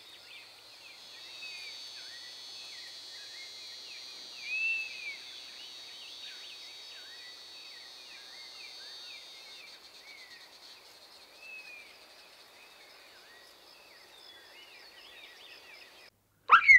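Wild natural ambience: a steady high insect buzz with many birds chirping and whistling in short calls. One louder arching call comes about four and a half seconds in, and a short, sharp, loud call comes right at the end.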